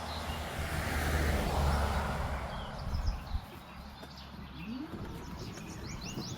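Woodland ambience: a low rush of wind noise swells and fades over the first few seconds, then a small songbird sings a quick run of high chirps near the end.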